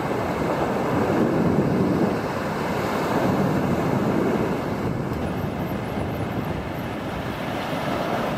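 Sea surf breaking along a shallow beach, with wind buffeting the microphone: a steady rushing noise that swells twice in the first half.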